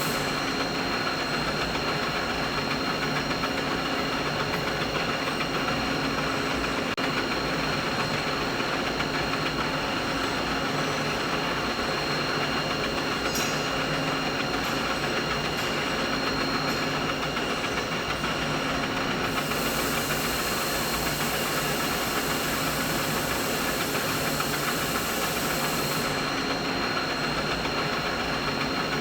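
Machinery running with a steady, even drone that carries a few faint steady tones. An extra high hiss comes in about two-thirds of the way through and cuts out again about seven seconds later.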